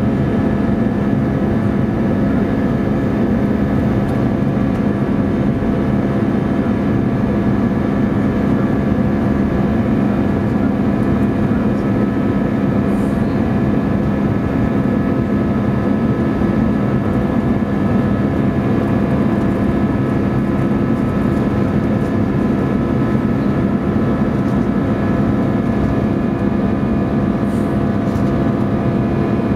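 Airbus A319 airliner in flight, heard from the cabin beside the wing: a steady roar of the jet engines and rushing air, with a few steady tones held above the drone.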